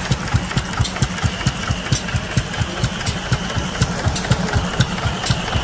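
Green horizontal stationary engine with twin flywheels running steadily, giving a rapid, even beat of low thuds, with light mechanical clicks over it.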